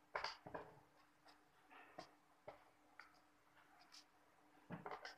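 Faint clicks and scrapes of a small screwdriver unscrewing screws from a plastic keyboard's back case and of the loose screws being handled, with a cluster of clicks just after the start and another near the end, over a steady low hum.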